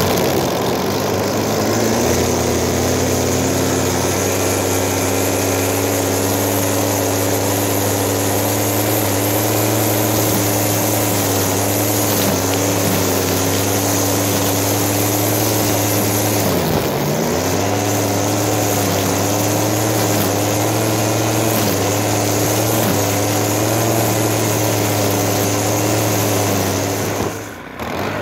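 Stihl FS90 string trimmer's small 4-MIX four-stroke engine running at high speed while its line cuts grass. The pitch sags briefly several times and recovers, dipping deepest about two-thirds of the way through, then drops away near the end. This is the engine a dealership condemned as worn out, now running and pulling under cutting load.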